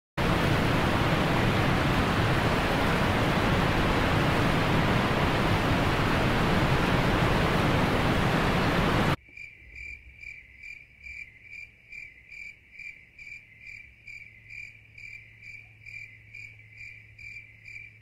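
A loud, steady rushing noise that cuts off abruptly about nine seconds in. Then a cricket chirping steadily, about two chirps a second, over a faint low hum.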